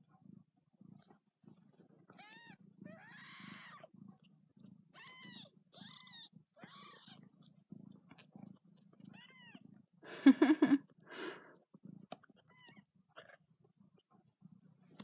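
Week-old kittens mewing: short, thin, high-pitched squeaks scattered throughout, with one louder, harsher cry about ten seconds in. A low, rhythmic purr runs underneath.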